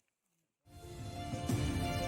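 Near silence, then background music fades in quickly a little over half a second in, with held notes over a steady low beat.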